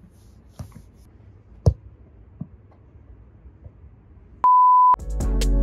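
A single loud, steady, high-pitched bleep lasting about half a second near the end, with the rest of the sound track cut out around it, as in a censor bleep. Music with a drum beat starts right after it. Before that there is only faint background with a few sharp knocks.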